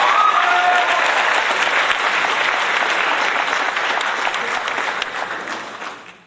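A crowd applauding, a dense patter of many hands clapping that fades out just before the end.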